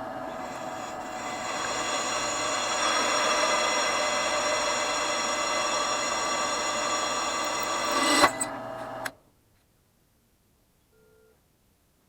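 Drill press running slowly while a Rodman Reaper drill bit cuts into a brake rotor: a steady whirring and grinding with several held high tones, getting louder after a second or two. A sharp clack comes just after eight seconds, and the sound cuts off about a second later.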